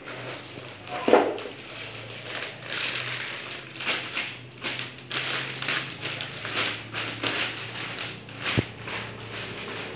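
Packaging being handled during an unboxing, with irregular crinkling and rustling. There is a sharp knock about a second in and a crisp click near the end.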